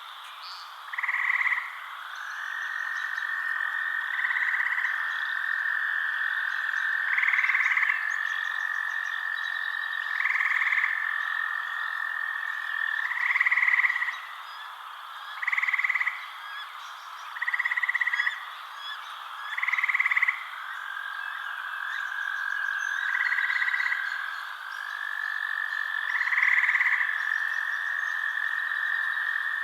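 A chorus of frogs calling at night: a continuous high trill, with louder short calls repeating about every two seconds and faint higher chirps.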